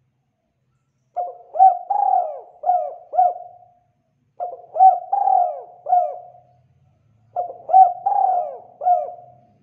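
Spotted dove singing its cooing song three times, about three seconds apart; each phrase is a run of about five short coos lasting some two and a half seconds.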